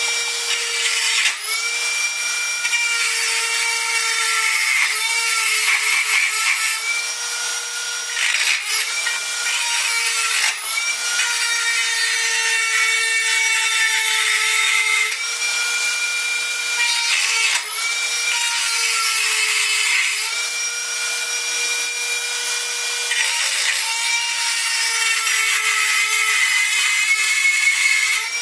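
Hand-held die grinder running at high speed, its bit grinding out the holes of a metal engine mount: a steady high-pitched whine with rasping, and brief dips in speed every few seconds as the bit bites or the trigger eases.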